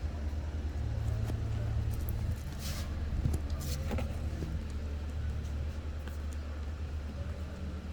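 A steady low rumbling hum, with short rustling scrapes about three and four seconds in from a sofa armrest's fabric cover and Velcro being worked on.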